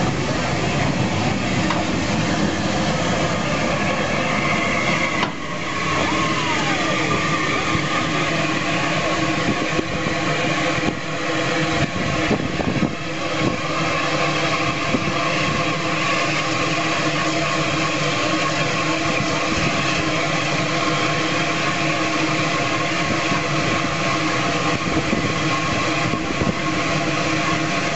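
Southern Railway West Country class 4-6-2 steam locomotive 34092 standing still with steam hissing steadily from it.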